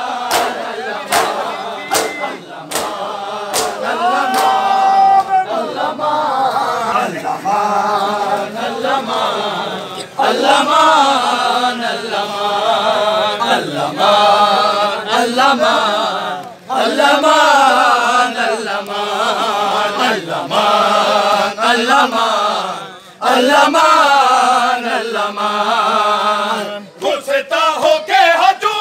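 A crowd of men chanting a noha in unison, long phrases rising and falling together. Rhythmic slaps of matam, hands beating on bare chests, keep time during the first few seconds and come back near the end.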